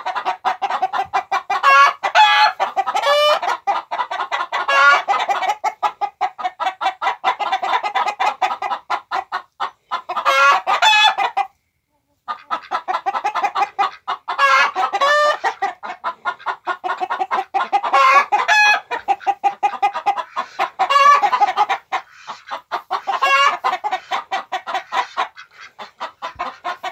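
A flock of chickens clucking continuously, many short overlapping calls from hens and roosters. The sound cuts out completely for about half a second near the middle.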